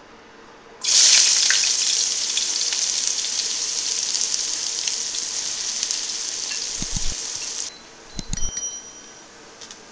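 Chopped shallots hitting hot oil in a nonstick pan: a loud sizzle starts suddenly about a second in, slowly eases, and cuts off a couple of seconds before the end. Near the end, a few low thumps and short high-pitched tones.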